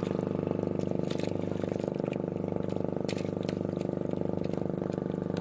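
Small boat's engine running steadily at low speed, an even pulsing drone, with a few faint clicks over it.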